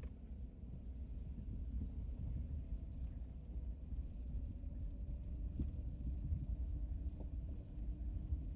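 Off-road vehicle driving on a dirt trail: a steady low rumble of engine and tyres.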